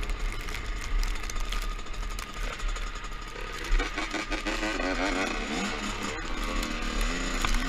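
Two-stroke dirt bike engine running under way, revving up and down repeatedly in the second half.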